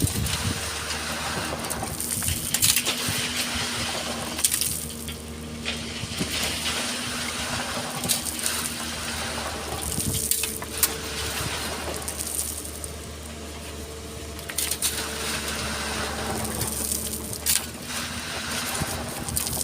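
Excavator's diesel engine running steadily while its bucket scrapes and crunches through sand and stones, with repeated sharp clattering as material is scooped and dumped.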